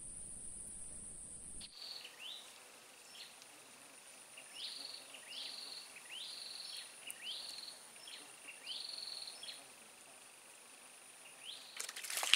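A bird calls over and over, a short rising-then-level note about every two-thirds of a second, over a steady high insect drone. Near the end comes a loud splash at the water surface as a snakeskin gourami strikes the baited hook.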